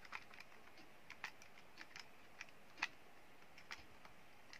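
Key presses on a Casio fx-82MS scientific calculator: a string of faint, irregularly spaced clicks as a number is keyed in.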